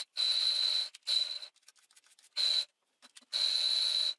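Cordless drill-driver running in short bursts with a high motor whine, turning a metal lathe chuck's scroll through its key socket to open and close the jaws and clear packed chips. Four bursts, the last and longest starting past the middle.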